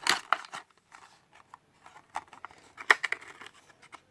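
Diecast toy-car packaging being handled and opened: a quick cluster of sharp plastic and cardboard clicks and crinkles at the start, scattered light ticks, and one louder snap about three seconds in.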